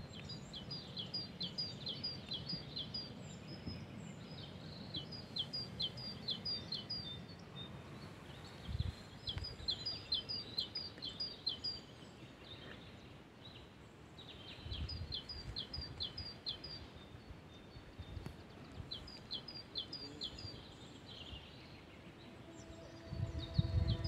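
A songbird sings five bouts of quick, high, down-slurred notes, each bout about two seconds long, over a low steady rushing from the flowing river.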